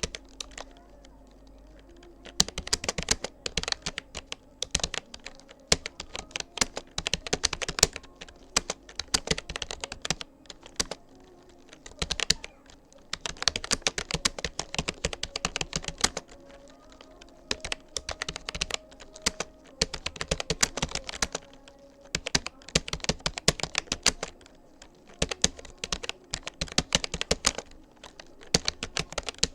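Rapoo computer keyboard being typed on at speed: rapid runs of key clicks, broken by short pauses every second or two.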